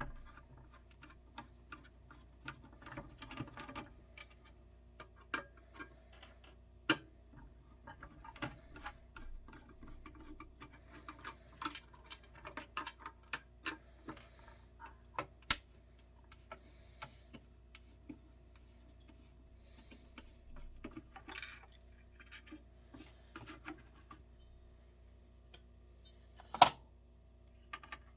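Irregular small clicks, taps and rattles of a lid's parts being handled and taken apart by hand, with one sharper, louder click near the end.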